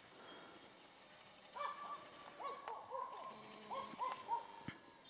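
A dog whining: a run of about seven short, high-pitched whimpers that rise and fall, heard faintly.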